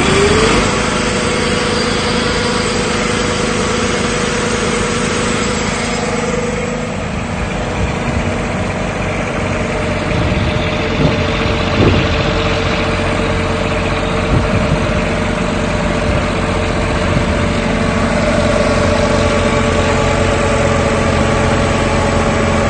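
Vintage tractor engine running under load on a PTO dynamometer: it revs up right at the start, then holds high, fairly steady revs, the pitch dipping a little about seven seconds in and climbing again near the end.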